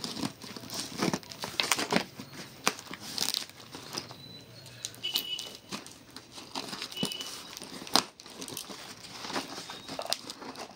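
Scissors cutting through brown packing tape on a cardboard parcel: irregular crinkling and tearing of the tape as the blades slit it, with a sharp click about eight seconds in.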